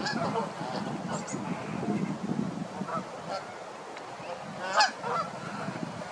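A flock of Canada geese honking, many calls overlapping, with one louder honk near the end.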